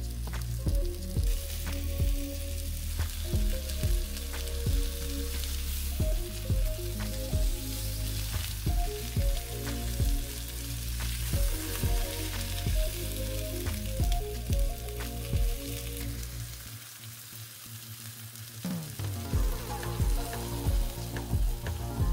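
Flour-dusted chicken breasts sizzling steadily as they fry in a nonstick pan, with a spatula working at them around the middle. Background music with a steady beat plays over it and drops out briefly near the end.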